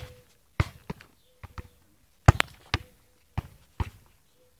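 A football being struck and bouncing in a game: about ten sharp thuds at uneven intervals.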